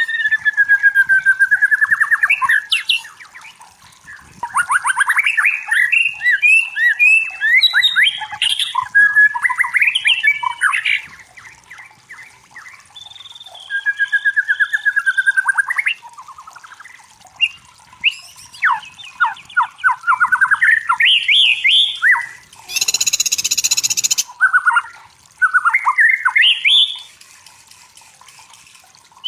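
White-rumped shama (murai batu) singing in repeated bursts of varied song: clear whistles, fast trilled runs and rapid rising and falling notes, with short pauses between phrases. About three-quarters of the way in comes a harsh, rasping burst of about a second and a half.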